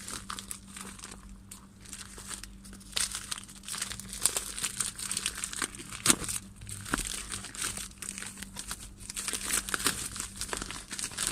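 Plastic packaging being unwrapped by hand, crinkling and tearing in irregular crackles, with a few sharper crackles along the way and a faint steady low hum underneath.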